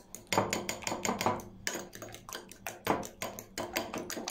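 A fork beating egg wash in a small glass bowl: quick, uneven clicks of the metal tines against the glass, with the wet slap of the liquid.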